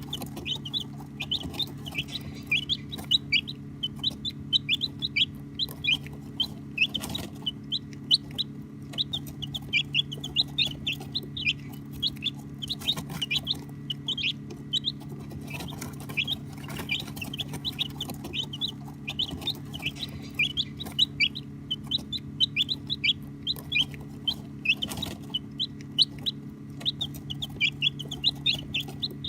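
A flock of baby chicks peeping: many short, high chirps overlapping almost without a break, over a steady low hum.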